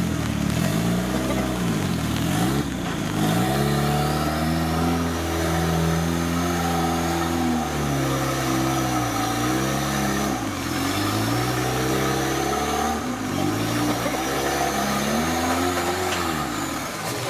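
Off-road 4x4 engine revving up and down over and over, its pitch rising and falling every couple of seconds under load, with a faint high whine above it.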